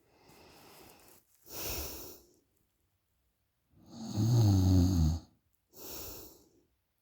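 A woman snoring in her sleep: a few noisy breaths, then one loud, low snore about four seconds in that lasts over a second, followed by a softer breath.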